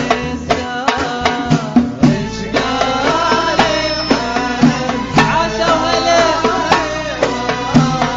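Middle Eastern-style music with hand-drum percussion and a steady beat.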